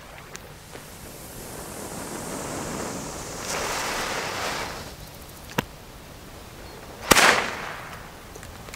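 Feistel Schwärmer A ground firework hissing as it burns, swelling over a few seconds and then fading, followed by a sharp bang about seven seconds in. It makes a poor showing rather than skittering about as it should.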